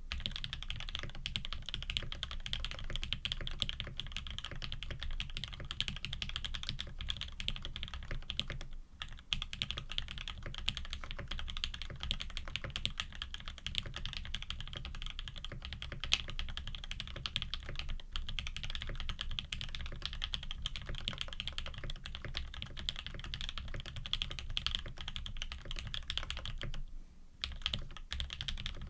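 Fast, continuous typing on a Frog TKL custom mechanical keyboard with GMK keycaps, an aluminium plate and lubed Tangerine linear switches: a dense stream of key clacks, with short pauses about nine seconds in and near the end.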